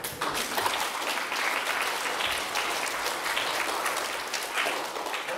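Audience applauding: many hands clapping, breaking out suddenly and carrying on steadily.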